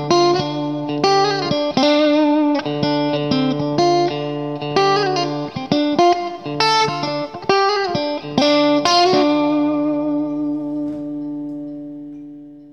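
Outro music: guitar playing a tune, ending on a held chord that fades out near the end.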